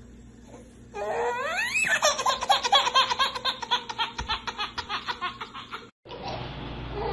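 A baby's belly laugh: it begins about a second in with a squeal that rises steeply in pitch, then breaks into rapid rhythmic laughing, about five bursts a second, which cuts off suddenly near the end.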